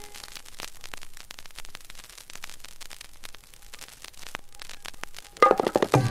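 Vinyl LP surface noise as the stylus runs through the silent band between tracks: a faint hiss with scattered crackles and pops. About five and a half seconds in, the next song starts with sitar and percussion.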